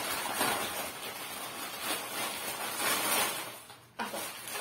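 Plastic carrier bag rustling as hands rummage inside it for a snack packet, with a short lull about three and a half seconds in.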